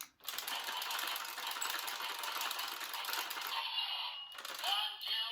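Zenkai Buckle toy playing its electronic sound effect through its small speaker: a rapid rattling clatter for about four seconds, then sweeping tones near the end.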